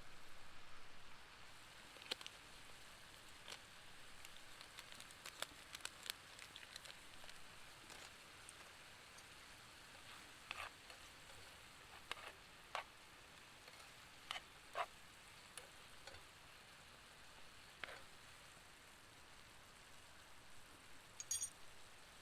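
Wood campfire crackling faintly, with a dozen or so scattered sharp pops over a soft hiss.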